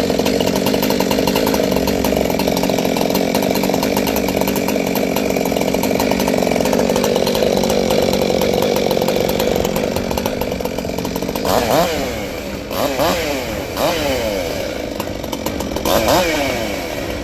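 Two-stroke chainsaw engine running at a steady high speed, then revved up and down repeatedly from about 11 seconds in.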